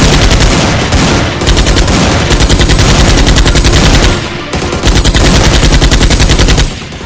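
Rapid automatic gunfire, a machine-gun sound effect, in three long bursts with short breaks about a second in and about four seconds in, stopping near the end.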